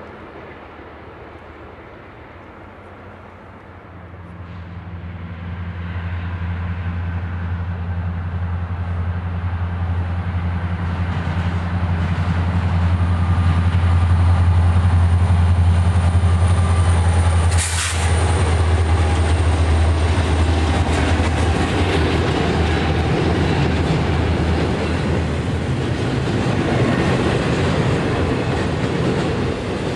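Diesel freight locomotives running steadily, growing louder as they approach. A sudden click a little past halfway, then the rumble and wheel clatter of a double-stack intermodal train rolling past.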